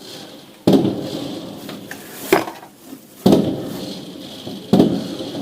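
Fireworks shells bursting overhead: four sharp bangs at uneven intervals, each trailing off in a rolling echo, over a steady hiss.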